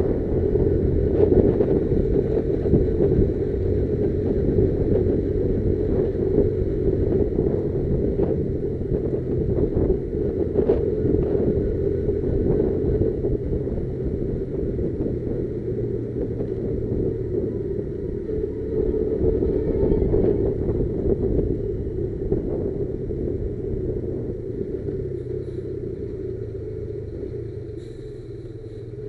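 Motorcycle running while being ridden, a steady rumble with road noise that eases off a little near the end.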